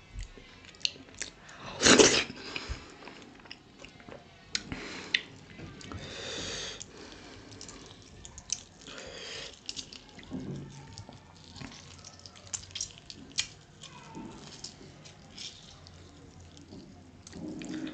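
Wet squelching and smacking of fingers kneading dhido, a stiff flour porridge, into thick nettle (sisnu) soup, mixed with close-miked chewing. The noise comes in short irregular clicks and smacks, with a louder wet squelch about two seconds in.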